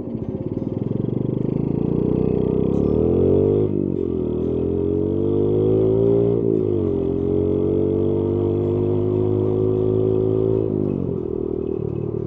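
Honda Monkey Z50J's small single-cylinder four-stroke engine pulling away under throttle, rising in pitch, dropping abruptly twice as it shifts up, then running steady before easing off near the end.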